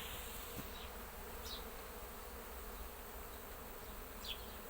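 Honeybees buzzing around a hive entrance, a steady hum. A few short, faint high chirps sound over it.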